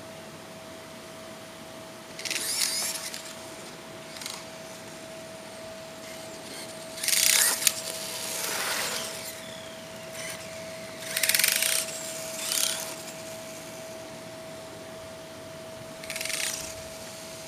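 Traxxas 1/16 Mini E-Revo RC truck given about six short bursts of throttle, each a rasping whir with clicking from the rear drivetrain under acceleration. The clicking is a fault the owner has not cured by replacing the rear bulkhead and rear skid plate. A faint steady tone runs underneath.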